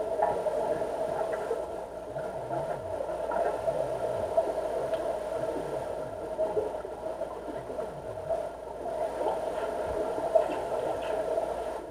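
Steady underwater hum of a deep diving pool, heard by a submerged camera: a constant drone with no distinct events.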